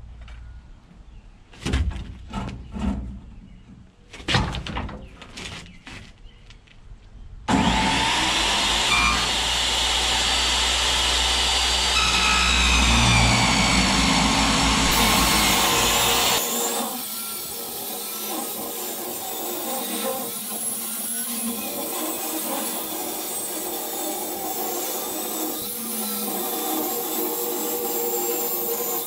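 A few scattered knocks and clanks, then about seven seconds in a corded circular saw starts cutting through steel plate and runs steadily to the end. About halfway through, its deep hum drops away and a higher, thinner cutting sound carries on.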